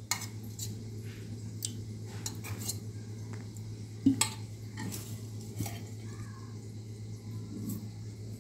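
Scattered light clinks of a spoon against a steel bowl, the loudest about four seconds in.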